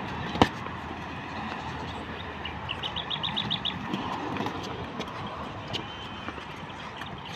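Boxing sparring: one sharp smack of a boxing glove landing about half a second in, then faint taps and shuffles over steady outdoor background noise. A quick run of about eight short high chirps comes near the middle.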